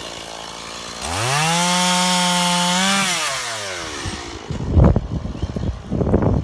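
Chainsaw revving up about a second in, running at high speed for about two seconds, then dropping back. Irregular crackling and low thumps follow near the end.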